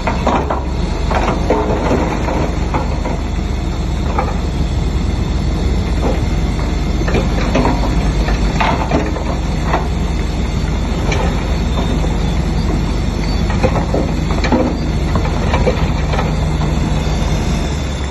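Shantui DH7C3 crawler bulldozer's diesel engine running with a steady low drone while its steel tracks clank and rattle irregularly, several knocks a second.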